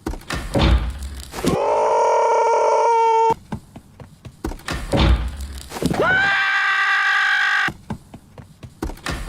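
Two long pitched sound effects dubbed in place of a cartoon scream, each a little under two seconds; each slides up at the start and then holds, the second higher than the first. Short thuds and knocks fall between them.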